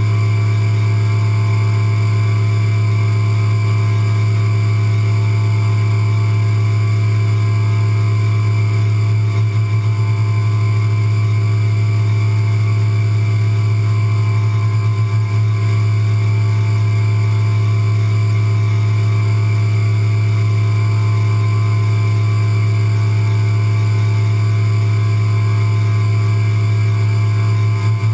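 CNC milling machine running while it engraves an aluminium part: a steady, unchanging hum with a fixed high whine from the spindle.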